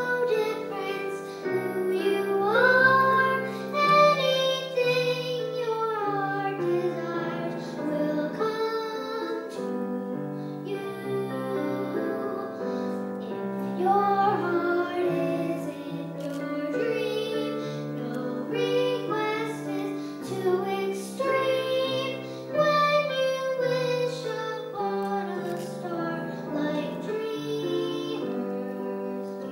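A young girl singing a song with piano accompaniment.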